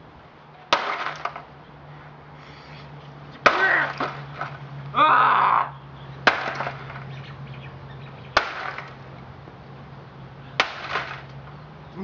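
A plastic electronic keyboard being smashed with a long-handled tool: five hard strikes about two seconds apart, each followed by a short rattle of breaking parts. A short shout comes about five seconds in, and a low steady hum runs underneath.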